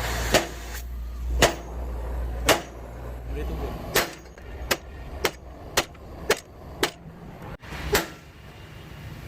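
Hammer blows, about ten sharp separate strikes: roughly one a second at first, then quicker, about two a second, from around four seconds in. A low steady hum underlies the first few strikes and stops after the third.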